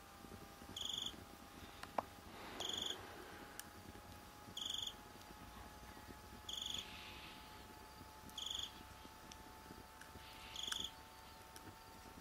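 A calling cricket giving short, high buzzing trills at a steady rate of about one every two seconds, with a faint steady high tone underneath. There is a single sharp click about two seconds in.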